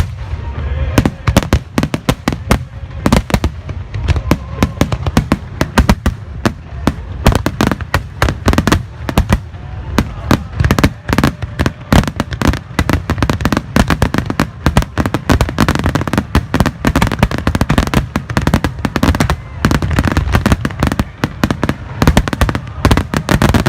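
Star mine fireworks barrage: a rapid, continuous string of sharp bangs and crackles from shells bursting many times a second over a constant low rumble.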